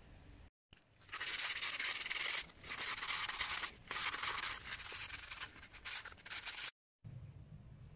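Hand sanding of a wooden sickle handle with sandpaper, in a few long rubbing strokes with brief pauses between them. It starts about a second in and cuts off suddenly near the end.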